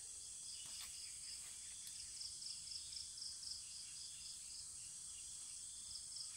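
Faint insect chorus: a high chirp pulsing evenly several times a second over a steady high hiss.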